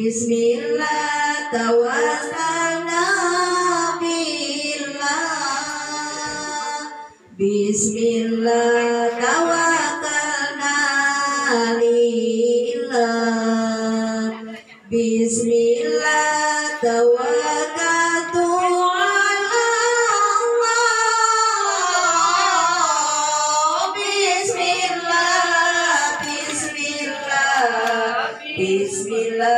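Female voices singing a slow, melodic chant in long drawn-out phrases, with brief pauses about 7 and 15 seconds in.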